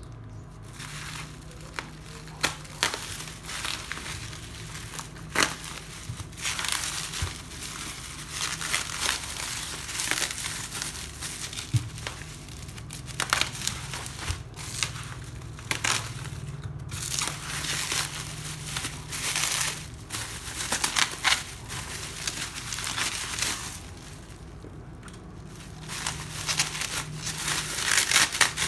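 Packaging crinkling and rustling in irregular bursts as a notebook is unwrapped and handled, with a few sharp clicks.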